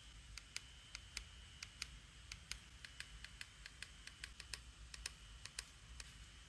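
Faint, irregular small clicks and taps, about twenty in six seconds, as a SMOK ARCFOX vape box mod is handled in gloved hands.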